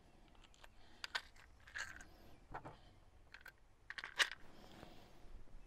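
Faint, scattered clicks and light knocks of the plastic housing of a Shurflo RV water pump being handled, with one sharper click about four seconds in.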